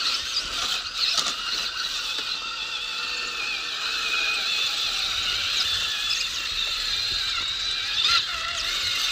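Electric motor and gearbox of a radio-controlled crawler truck whining as it climbs, a high whine that wavers slightly in pitch with the throttle. There is a click about a second in and a sharper knock near the end.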